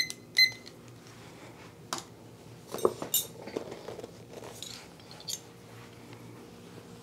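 A digital kitchen timer beeping twice as it is set, then a few light knocks and clinks as it is put down on the wooden table among ceramic cupping bowls.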